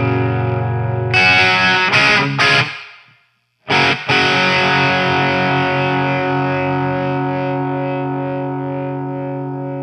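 Overdriven electric guitar through a DIY Mojotone British 800 (JCM800-style) tube amp kit, pushed by a Boss SD-1 overdrive. A held chord gives way to a few quick strums that are cut off into a short silence about three seconds in. Then two strums and a long chord left ringing and slowly fading.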